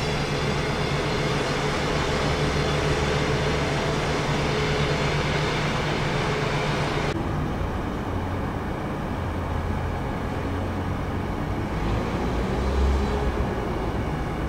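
Steady mechanical drone of heavy machinery running, with a whining, many-toned engine or motor sound that cuts off abruptly about seven seconds in, leaving a lower hum.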